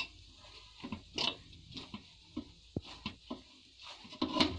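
Hands kneading roti dough in a stainless steel bowl: irregular soft thumps and squishes as the dough is pressed, folded and pushed against the bowl. The loudest thump comes near the end.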